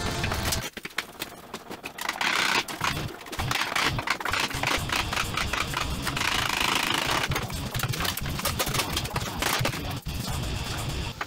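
A handheld power tool working into the rusty steel of a 1954 VW microbus front frame, a rapid rattling clatter thick with metallic clicks, starting about two seconds in after a short pause.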